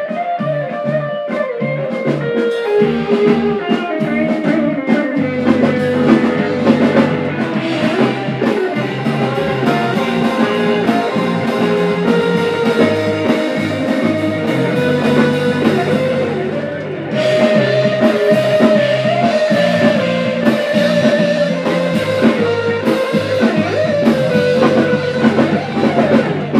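Live rock band playing: electric guitars with a sustained lead line over a low bass line and drum kit. The band drops back briefly about 16 seconds in and comes back in fuller, with cymbals crashing.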